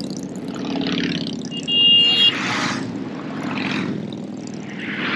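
Motorcycles running past one after another, each pass swelling and fading. A horn honks once, for about half a second, just under two seconds in.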